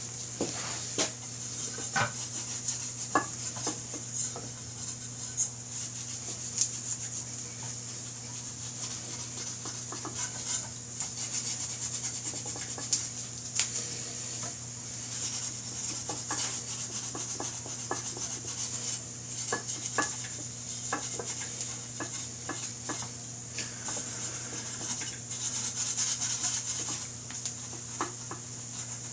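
A rag rubbing and wiping a motorcycle brake rotor clean with acetone, with scattered light clinks and taps of the metal disc being handled, over a steady low electrical hum.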